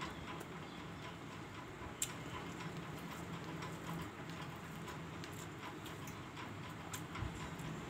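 Close-up eating sounds: chewing and small wet mouth clicks, with fingers mixing rice on a plate. A sharper click about two seconds in and another near the end.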